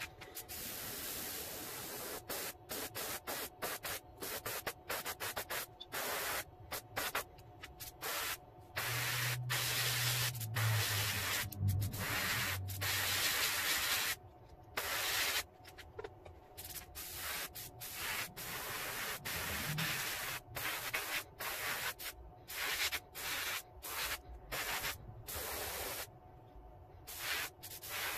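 Airbrush spraying paint in many short on-off bursts of hiss as the trigger is pressed and released, some bursts brief and some held for a few seconds.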